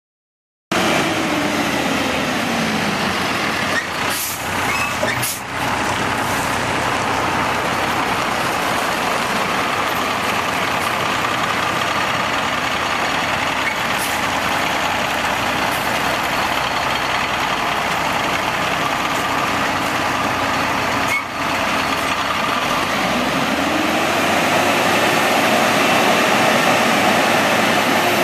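WhiteGMC Xpeditor WX-42 roll-off truck's Cummins diesel engine running steadily, cutting in within the first second and easing down in revs over the next couple of seconds. Near the end the engine revs up as the Amrep roll-off hoist arm is raised.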